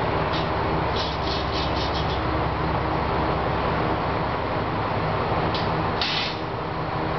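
Diesel railcar engines idling steadily, with a quick run of short hisses in the first two seconds and a longer, louder hiss about six seconds in.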